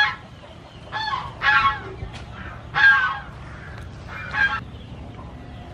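Fowl calling: about five short, loud calls in a row, each under half a second long.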